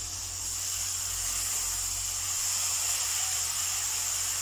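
Chicken in tomato and spice masala sizzling with a steady hiss in a non-stick wok while being stirred with a silicone spatula.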